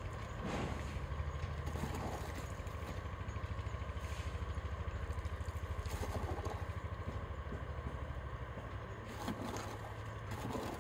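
An engine running steadily, its low, even, rapid beat throughout, with a few brief scrapes and taps of trowels working wet mortar.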